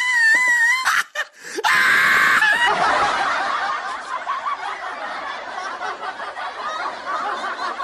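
A high, wavering scream that breaks off about a second in, a second short outburst, then laughter from many voices that carries on steadily, like a laugh track.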